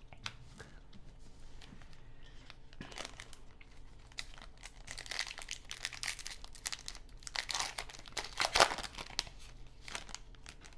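A trading card pack's wrapper being torn open and crinkled. The crackling comes in irregular bursts, heaviest in the second half, with one sharp loud crinkle near the end.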